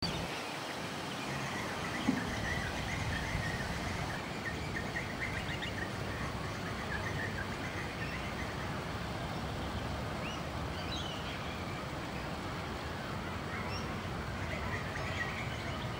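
Outdoor ambience: a steady low background hum with faint bird chirps scattered through, and a single brief knock about two seconds in.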